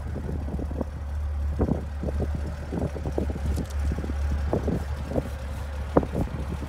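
Alfa Romeo 2600 Berlina's twin-carburettor inline six-cylinder engine idling steadily, with an irregular flutter of short soft bursts over the low hum.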